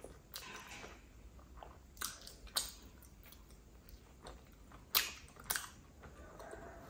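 Close-miked chewing of a small piece of Khmer dessert, with four sharp mouth clicks: two about two seconds in and two louder ones about five seconds in.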